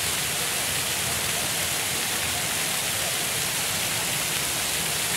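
Public fountain jets splashing steadily into their basins: a dense, even rush of falling water with no breaks.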